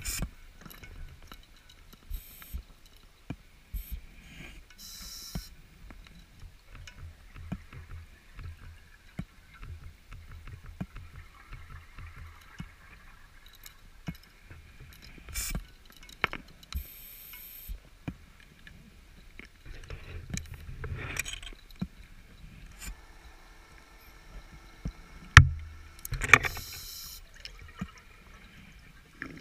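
Underwater ambience picked up through a dive camera: a low rumble with scattered clicks and knocks, and several short hissing bursts of diver's bubbles. The loudest are a sharp knock and a bubbling burst near the end.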